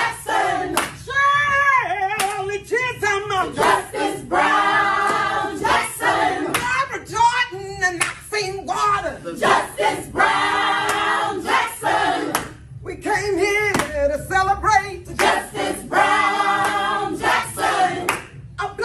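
A group of voices singing a celebratory chant together in repeated phrases, with hand claps throughout.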